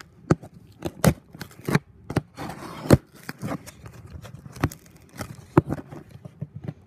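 Hands working at a heavily taped cardboard package: irregular sharp clicks, scrapes and crackles of packing tape and cardboard being picked and pulled at.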